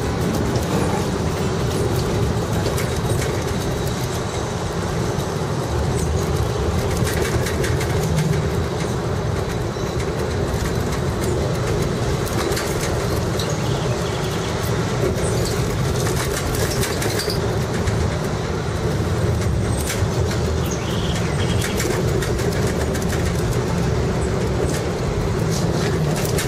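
Funicular car running on its inclined rails: a steady rumble with rapid clicking and rattling from the wheels and track.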